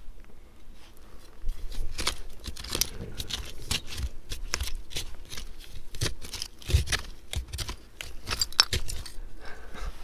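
Small hand tool scraping and crunching through loose, gritty privy soil: a rapid, irregular run of short scrapes and clicks as dirt is raked away from buried bottles.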